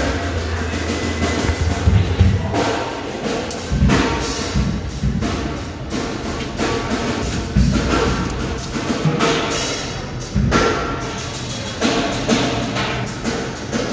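Music with drums and other percussion, full of irregular sharp knocks.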